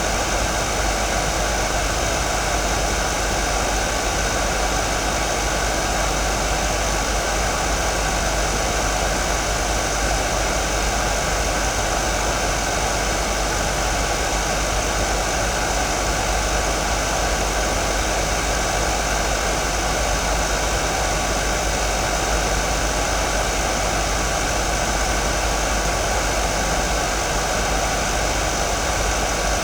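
Hair dryer running steadily on one setting: an even, unchanging hiss of fan and airflow with a few faint steady tones under it.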